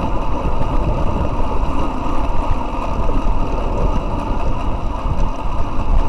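Steady rush of wind over a bike-mounted microphone with road rumble from a road bike's tyres on asphalt, riding at about 37 km/h.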